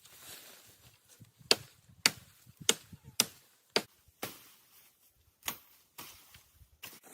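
A series of sharp chopping strikes, about nine in all, spaced half a second to a second apart, with a short pause past the middle.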